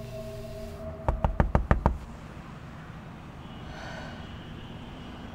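Knocking on a door: a quick run of about six raps a little over a second in.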